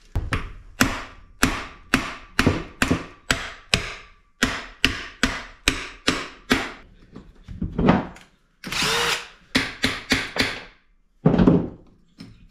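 Hammer taps on the side cover of a Honda Z50 minibike engine case, about three sharp, ringing knocks a second, to break the cover loose. Near the end comes a heavier, duller knock.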